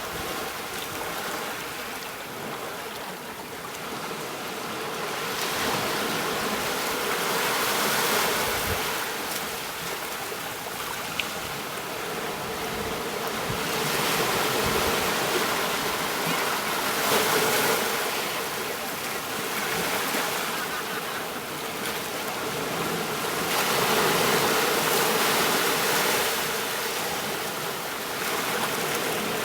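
Ocean surf washing onto a beach, a steady wash of water that swells and eases every few seconds as waves break and run back.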